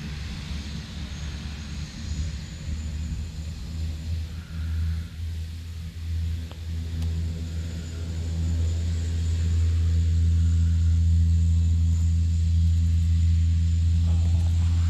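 Propeller engine of a skydiving airplane running: a low, steady drone that grows louder about eight seconds in and then holds.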